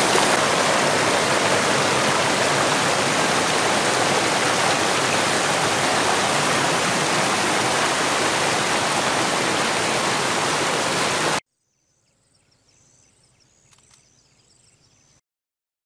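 Muddy stream rushing and splashing over rocks, a loud steady noise of water. It cuts off suddenly about eleven seconds in, leaving near silence.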